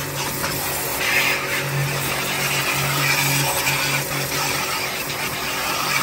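Electric pressure washer pump running with a steady hum that swells and dips, under the hiss of its water jet spraying a car's wheel and tyre.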